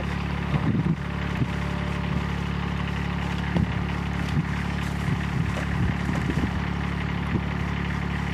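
An engine idling steadily, an even low hum, with a few faint knocks scattered through it.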